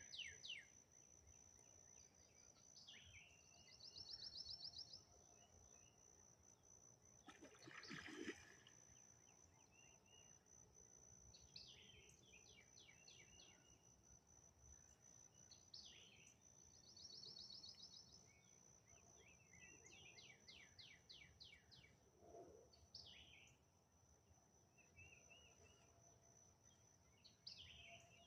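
Faint birds calling again and again, short downward calls and quick trills, over a steady high-pitched tone. About eight seconds in there is one big splash in the water, which the recordist wonders was an alligator.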